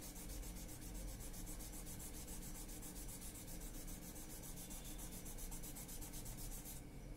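A cotton makeup-remover pad rubbed over graphite pencil shading on drawing paper to blend it: a soft, steady rubbing of cotton on paper.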